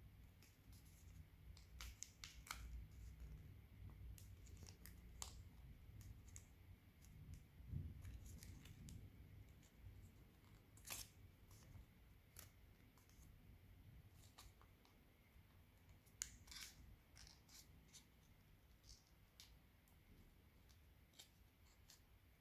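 Faint crinkling and soft clicks of origami paper being folded and creased by hand, with a few sharper crackles about halfway through and again a few seconds later.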